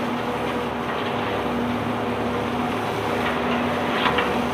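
A self-unloading barge's engine and unloading machinery running steadily, a constant hum over a loud mechanical noise.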